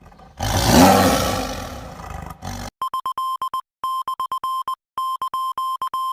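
A roaring sound effect that fades over about two seconds, followed by a steady electronic beep at one pitch, pulsing on and off in quick repeated groups.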